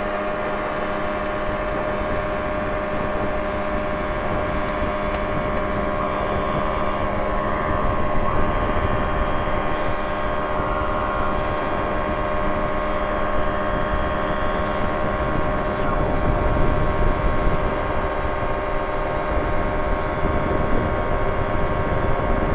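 Quad City Challenger II ultralight's engine and propeller at full power on the takeoff run from a grass strip and into the climb, a steady drone with rumble underneath.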